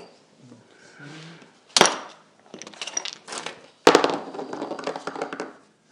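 Hands rummaging among objects on a cluttered desk: a sharp knock about two seconds in, small clicks and taps, then another sharp knock about four seconds in followed by clattering as things are moved about.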